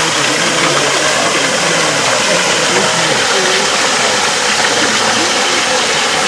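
Spring water falling from a rock face into a pool: a steady rushing splash.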